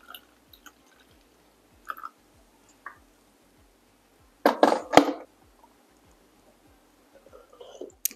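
Light clicks and handling sounds of a glass and a milk frother on a counter, with one louder short rustling clatter about halfway through.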